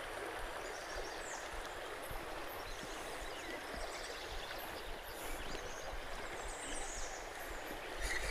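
Shallow river current running over rocks, a steady even rush of water.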